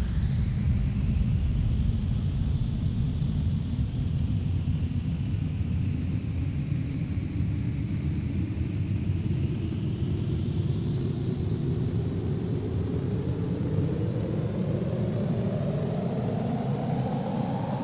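Synthesized sci-fi engine sound: a steady low rumble with thin tones sweeping slowly up and down above it, and a tone climbing in pitch over the last few seconds.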